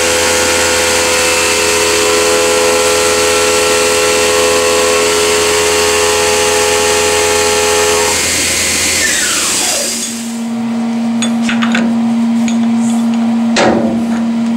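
CNC milling machine spindle running a chamfer tool along the edge of a milled metal plate: a steady whine over the hiss of mist coolant spray. About eight seconds in the spindle spins down with a falling whine and the hiss stops, leaving a low steady hum, a few clicks and a sharp knock near the end.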